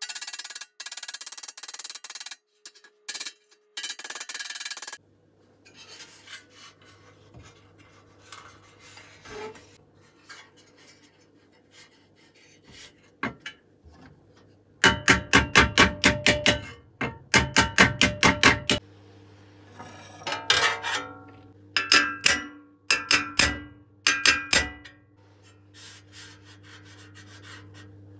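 Hammer striking thick sheet-steel toy truck parts: a fast run of sharp metallic blows about four a second around the middle, then shorter groups of taps. Before that, a few seconds of scraping and rubbing on metal, and a low steady hum underneath.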